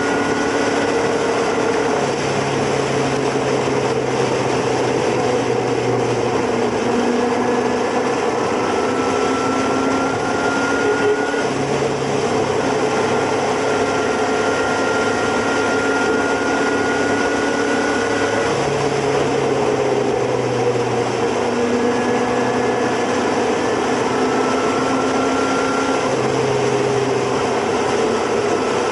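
Motorcycle engine running at cruising speed, heard from on the moving bike, over steady wind and road noise. The engine tone holds for a few seconds at a time, then shifts to another pitch, several times over.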